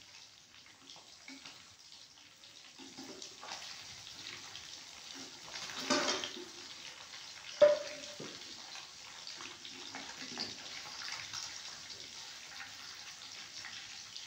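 Fish frying in a pan of hot ghee, sizzling steadily, while a spoon scrapes and turns the pieces. The sizzle swells about six seconds in, and soon after there is one sharp metallic clink of the spoon against the pan.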